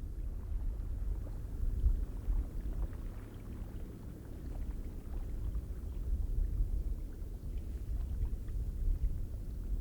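Icelandic geyser-field ambience: a steady low rumble with gusty wind noise on the microphone, swelling a little now and then, and faint spattering crackles.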